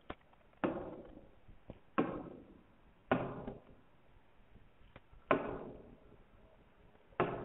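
Taps on an interactive whiteboard's touchscreen as it is operated, about five sharp knocks a second or two apart, each ringing out briefly, with a few fainter clicks between.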